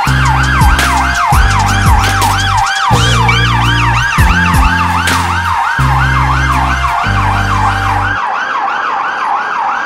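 Police van siren on a fast yelp, sweeping up and down about four times a second. Under it, a deep pulsing low sound in blocks of about a second stops about eight seconds in.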